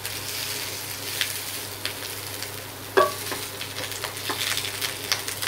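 Onions, chillies, garlic, capsicum and tomato sizzling steadily as they fry in oil in a pan, with a utensil knocking and scraping against the pan a few times, the loudest knock about three seconds in. The vegetables are being fried until lightly browned.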